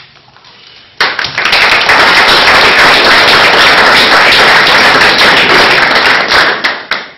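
Audience applauding, loud, starting abruptly about a second in and dying away near the end.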